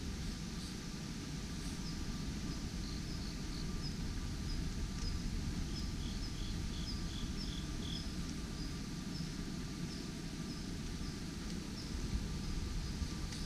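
Birds chirping in short, scattered calls, with a quick run of about seven repeated notes in the middle, over a steady low rumble.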